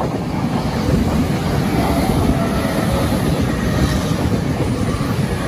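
E231 series electric commuter train running close past on the track, a loud steady rumble of wheels on rail that grows louder through about the first second as the train draws level.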